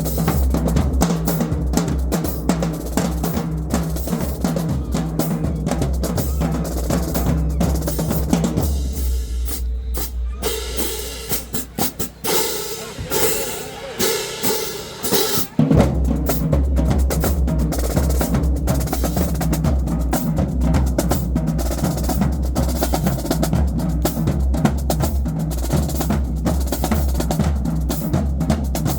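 Marching drumline playing a cadence: snare drums, tenor drums and bass drums in dense, fast patterns. About nine seconds in the bass drums drop out for a lighter passage, and the full line comes back in about sixteen seconds in.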